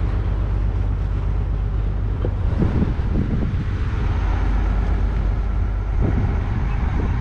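Wooden fishing boat's engine running steadily as the boat moves, a low hum, with wind buffeting the microphone.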